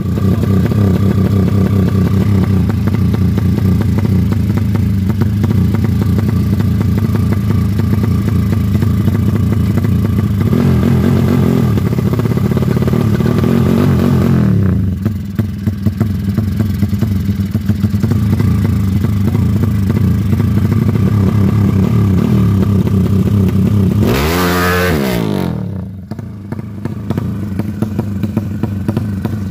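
Tuned drag-racing motorcycle engine running loud and steady at a fast idle. It is revved up briefly about ten seconds in, and given one quick blip that sweeps up and back down near the end, after which it settles to a lower, rougher idle.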